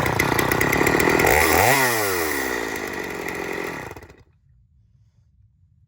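Two-stroke gasoline chainsaw running at high revs. Then its engine note falls away and it winds down to a stop about four seconds in.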